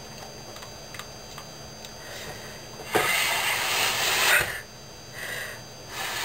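Clarinet blown by a player who can't sound it: rushing, breathy air with no clear note. One long blast starts about three seconds in, a short puff follows about a second later, and the air noise comes back near the end.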